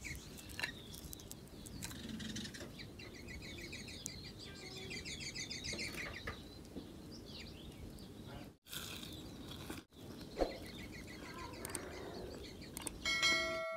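Small birds chirping in quick trains of short notes against a steady outdoor background. Near the end a short bright chime rings out, louder than the birdsong.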